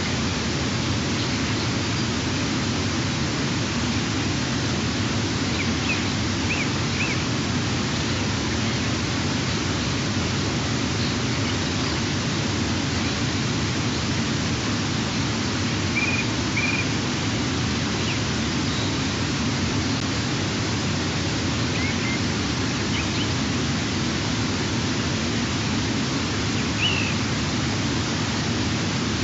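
Steady hiss from a nest-camera microphone, with a few faint, short bird chirps scattered through it.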